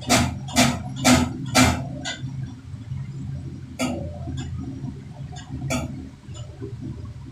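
Diesel injector nozzle on a hand-pumped nozzle tester, popping off in short sharp bursts about twice a second, then slowing to single pops about two seconds apart, over a steady low hum.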